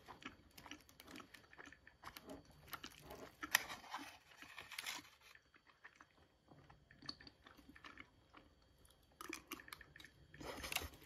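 A person chewing and biting into a wrap with a hard shell, close to the microphone: small crunching crackles in irregular spells.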